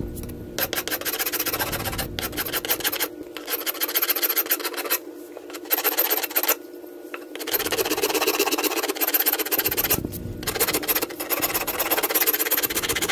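Four-in-hand shoemaker's rasp filing the wooden axe handle's top end, in runs of quick back-and-forth strokes broken by short pauses. It is taking wood off the high spots where the axe head binds, so the head can seat down the handle.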